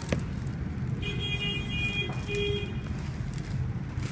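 Steady low background rumble, with a high electronic beeping tone starting about a second in and lasting about a second and a half. A click from handling the shrink-wrapped phone box comes right at the start.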